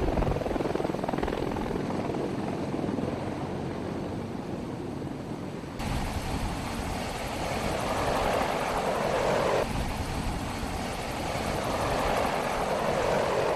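Military rotorcraft running loud and steady, a dense rotor and engine noise. Its tone and level change abruptly three times as the footage cuts between shots.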